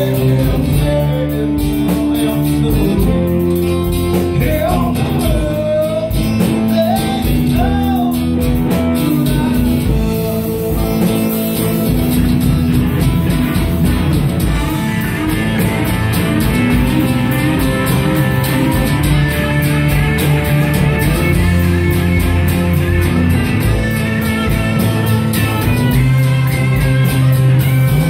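Rock band playing live: electric guitars and a drum kit, with bending lead notes filling the second half.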